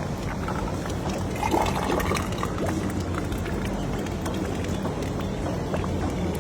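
Street-food stall ambience: a steady low mechanical hum under clattering and liquid sounds.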